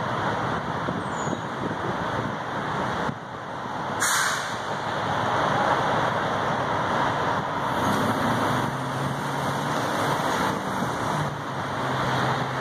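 Road traffic at a busy intersection: a steady wash of vehicle engine and road noise, with a short sharp burst of noise about four seconds in and the low, steady hum of a nearby engine from about eight seconds on.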